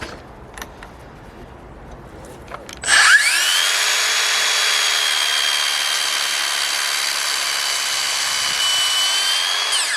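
Makita DLS600 18-volt cordless mitre saw: a few light clicks, then the blade motor spins up quickly about three seconds in and runs with a steady high whine for about seven seconds while taking a very thin, roughly 1 mm slice, winding down right at the end.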